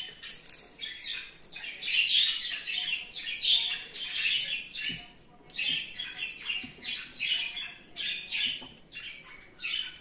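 Budgerigars chattering in short, repeated bursts of squawky chirps.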